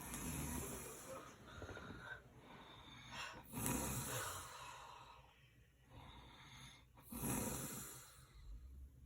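A sleeping person snoring: three noisy snores on the breaths, about three and a half seconds apart, with quieter breathing between.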